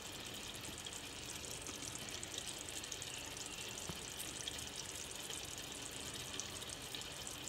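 Thick onion, yogurt and tomato masala bubbling in oil in a pot, a faint steady sizzle and hiss with fine crackle. The masala is fully fried, with the oil separated at the edges.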